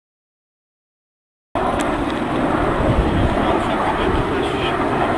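Silence for about a second and a half, then a steady, loud aircraft engine noise with a deep rumble cuts in suddenly.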